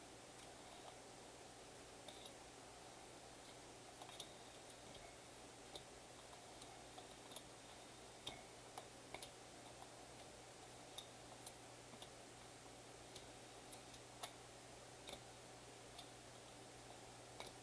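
Faint, irregular clicks and taps of trading cards being handled and set down while being sorted into stacks, over a low steady hum.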